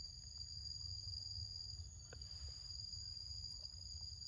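Steady high-pitched buzzing of an insect chorus, several unbroken tones held at once, over a low rumble, with a faint click about two seconds in.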